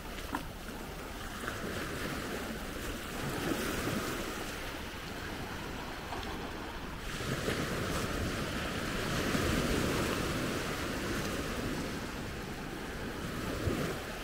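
Small surf washing up onto a flat sandy beach, the rush of water swelling and fading as each wave runs in, with some wind on the microphone.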